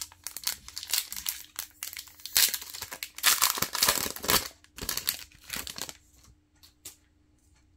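Plastic wrapper of a Topps baseball card pack crinkling in the hands and being torn open, with the loudest tearing between about two and a half and four and a half seconds in.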